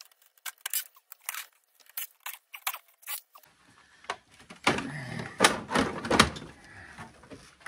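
Plastic top housing of an electronic cash register being worked loose and lifted off. First comes a run of sharp clicks, then louder scraping and rattling with a few knocks as the cover slides free of the chassis.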